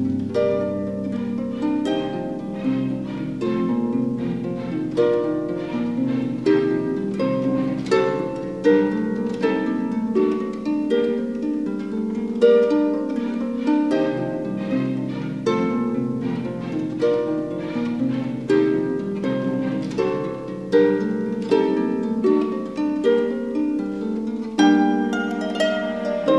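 Background classical music led by harp: a steady, unbroken stream of plucked notes.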